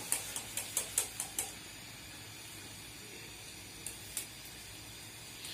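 Quick run of light metal clicks, about eight in the first second and a half and two more about four seconds in: a spatula knocking against a flower-pitha mould over a wok to free the fried pitha. A faint hiss of frying oil runs underneath.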